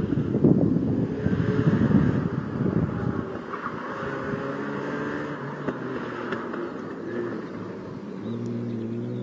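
1986 Mazda RX-7 FC's naturally aspirated 13B twin-rotor Wankel engine at racing revs. It is loud as the car passes close by, then quieter as it pulls away, its pitch stepping up and down with throttle and gear changes.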